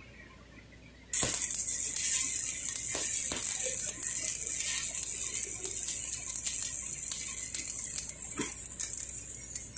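Stick (shielded metal arc) welding arc on a pipe joint. It strikes about a second in and then runs as a steady crackling hiss with scattered pops.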